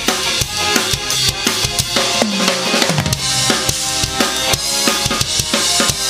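DW Collector's Series waterfall bubinga drum kit played in a steady groove, bass drum and snare with cymbals, over a drumless ska backing track.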